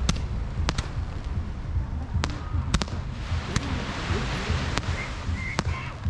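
Fireworks bursting overhead: about nine sharp cracks at irregular intervals, some in quick pairs, over the steady rush of the sea.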